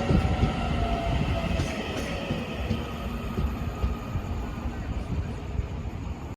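Train running on the rails: a steady rumble with a faint, slowly falling whine. It gradually grows quieter.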